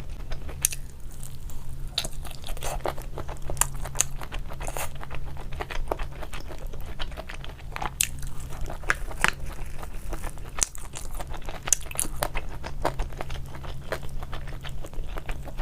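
A person biting and chewing crunchy food close to the microphone, with many irregular crisp crunches.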